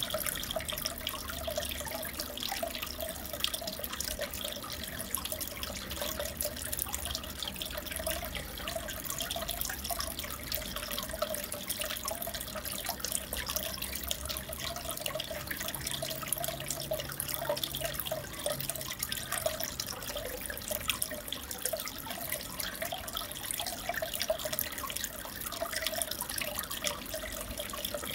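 Aquarium water bubbling and trickling steadily, with a constant patter of small drips and splashes.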